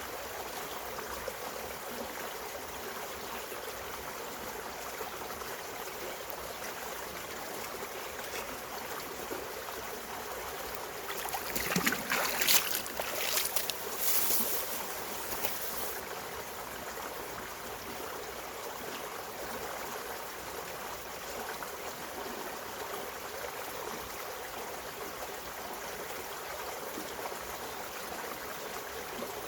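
Mountain stream running steadily over rocks. About a third of the way in, a louder, rough burst of sound lasts a few seconds and then fades back into the flow.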